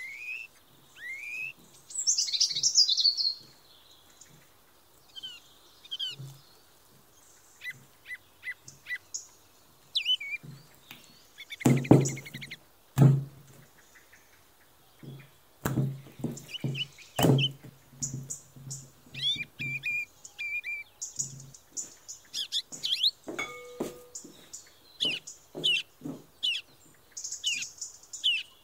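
Small birds chirping and singing throughout, with knocks and soft thumps of dough handling as sticky yeast dough is worked, slapped and turned out of a glass bowl. The thumps come in a run around the middle, with a few sharp knocks as loud as the loudest chirps.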